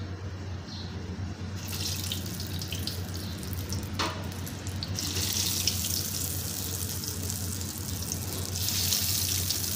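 Gram-flour-coated potato fingers going into hot oil for deep frying: the oil starts sizzling about two seconds in and the sizzle swells as more pieces go in, about halfway and again near the end. A single sharp click about four seconds in.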